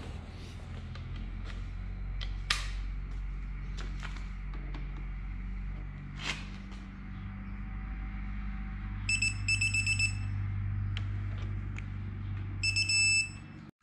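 Electronic torque wrench tightening a connecting rod cap bolt to 60 ft-lb, its beeper giving a rapid burst of high beeps about nine seconds in and again near the end as the set torque is reached. A couple of sharp clicks come earlier, over a steady low hum.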